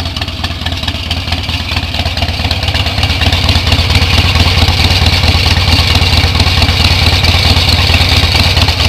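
An engine running steadily with a rapid low pulsing, growing louder about three seconds in.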